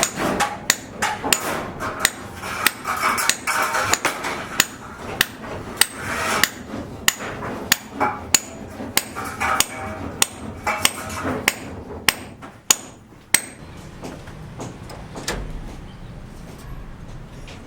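Hammer blows struck over and over, about two a second, each with a bright metallic ring, stopping about 13 seconds in.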